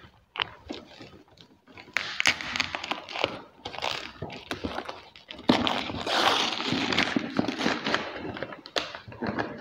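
White paper wrapping being ripped and crinkled by hand as it is torn off a cardboard parcel box: irregular crackles and tearing noise, with a longer, louder rip in the second half.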